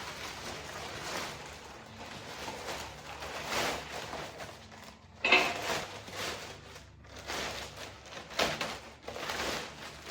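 Plastic bag rustling and crinkling in irregular swishes as it is pulled over a stripped-down LS V8 engine block, with a sharper crackle about halfway through.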